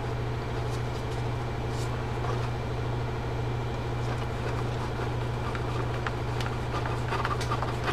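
A steady low hum, with a few faint light clicks as a hand screwdriver turns a screw into a Shakespeare Sigma 60 spinning reel's plastic case.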